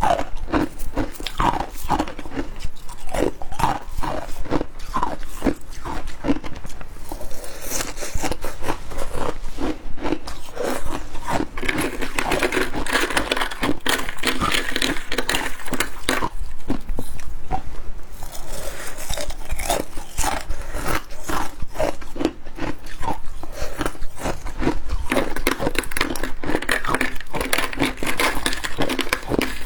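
Close-miked biting and chewing of frozen humidifier icicles: a continuous run of crisp, rapid crunches.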